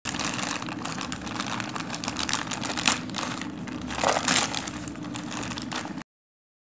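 Plastic courier mailer bag crinkling and crackling as hands crumple it and tear it open; the sound cuts off suddenly about six seconds in.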